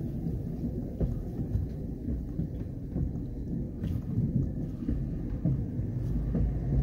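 Hi-rail pickup truck rolling along the rails on its rubber tires, heard from inside the cab as a low, uneven rumble with a few faint knocks.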